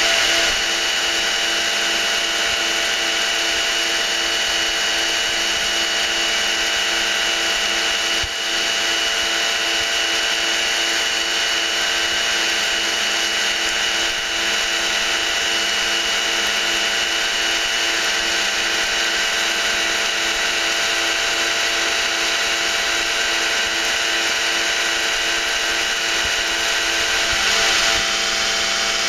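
Wine pump running steadily during a pumping-over of fermenting red wine: a motor hum with a regular pulse about twice a second, over the noise of wine pouring into a tub. The pulse stops near the end.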